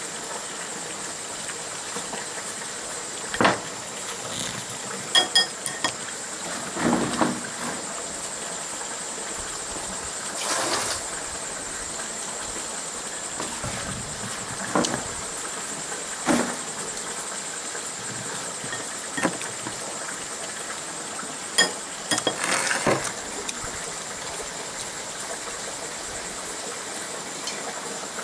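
Eating utensils knocking and clinking against a bowl about ten times, at irregular intervals, over a steady background hiss.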